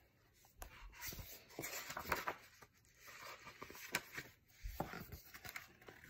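Hardcover picture book being handled, opened and its pages turned: irregular soft paper rustles with a few sharp clicks.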